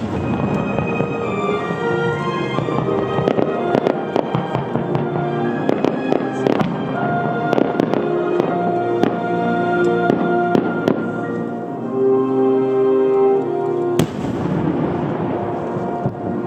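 Starmine fireworks barrage: many bursts bang in quick succession, with one sharper bang near the end. Synchronized music plays steadily underneath.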